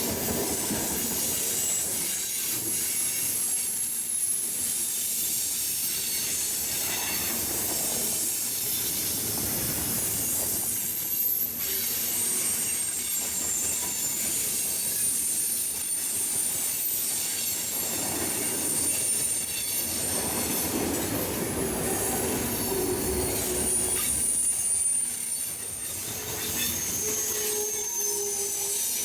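Railroad cars rolling past with their wheels squealing against the rails: thin, high-pitched squeals that slide up and down in pitch over the steady noise of the passing train.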